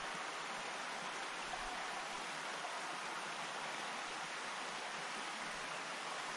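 Small creek running over rocks at the bottom of a rocky gorge, a steady rushing of water.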